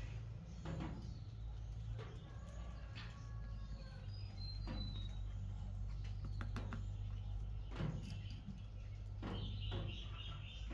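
Light wooden knocks and scrapes as small wooden blocks are handled and fitted into an octagonal ring on a wooden table, with a flat stick working along the joints. A bird chirps briefly a few times in the background over a steady low hum.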